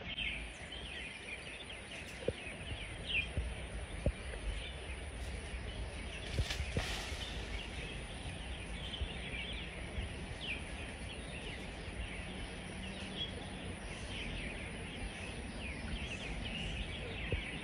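Forest ambience: many short, high chirps scattered throughout over a steady background hiss and a thin, constant high whine, with a few faint clicks.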